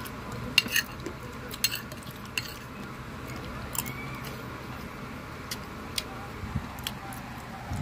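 Close-up chewing of crispy chicharon (deep-fried pork crackling): irregular sharp crunches, the loudest in the first two and a half seconds.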